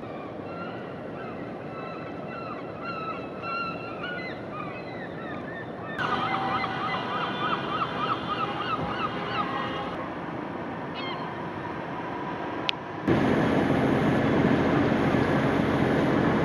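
A flock of birds calling: many short, repeated, pitched calls that grow louder and denser about six seconds in. About thirteen seconds in, the calls cut off and are replaced by a loud, steady rushing noise.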